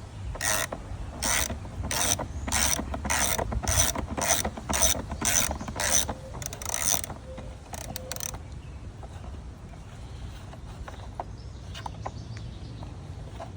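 Hand ratchet clicking in a steady rhythm, about two strokes a second, as it backs out the airbox screws. The clicking stops about eight seconds in, leaving only faint background.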